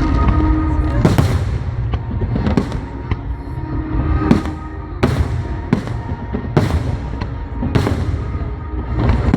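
Aerial fireworks shells bursting: about eight sharp bangs, roughly one a second, over a continuous low rumble of the display.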